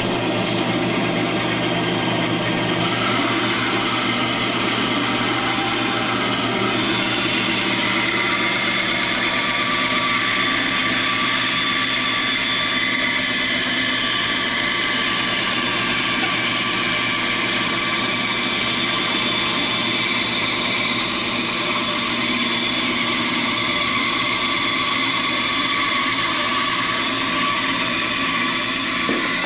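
Band saw running and cutting through a cedar board, the blade following a curved line. Steady throughout.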